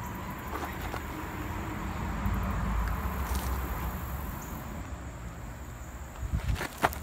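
Low steady outdoor rumble, then a few crunching steps on loose gravel near the end.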